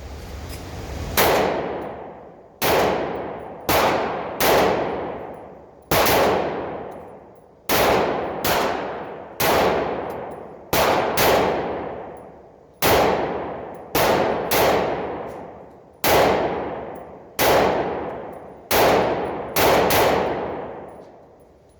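10mm Glock pistol fired shot after shot, about eighteen rounds at an uneven pace of roughly one a second, each report trailing off in a long echo.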